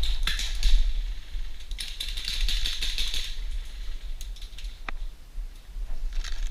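Airsoft guns firing in rapid clicking bursts: one at the start, a longer one from about two seconds in to past three, a single shot near five seconds and more near the end.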